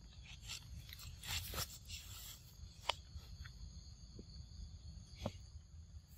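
Faint rustling and scattered sharp clicks from monkeys moving about and handling a newborn on stones and leaf litter. Beneath them runs a steady high drone of insects.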